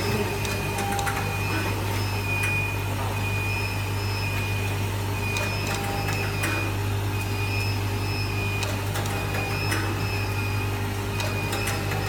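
Automatic cable-tie binding machine running: the vibratory bowl feeder that delivers the nylon ties keeps up a steady low electric hum. Over it come a thin high tone that comes and goes and scattered sharp clicks of the feed and tying mechanism.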